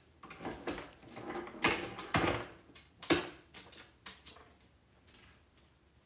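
Irregular wooden knocks and plastic rattles, loudest about two seconds in and tailing off after about four and a half seconds. An African grey parrot is clambering over an open wooden kitchen drawer and jostling a loose plastic dishwasher part against the wood.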